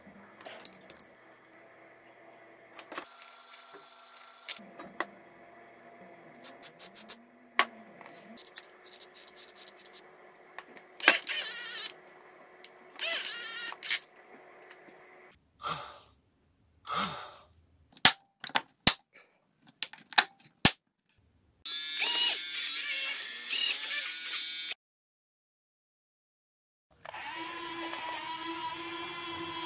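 Small clicks and snips of wire cutters and handling on a plastic RC excavator, then several short whirring bursts of small electric motors. Near the end a steady electric motor whine sets in.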